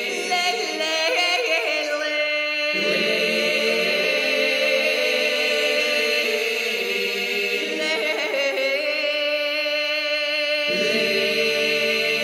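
Unaccompanied choral singing in long held chords, shifting to a new chord about three seconds in and again near the end.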